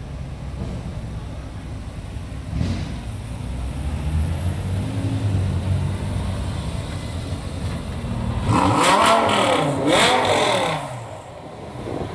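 Lamborghini LP550's V10 engine running at low revs with a steady rumble, then revved hard twice near the end, the pitch rising and falling with each rev.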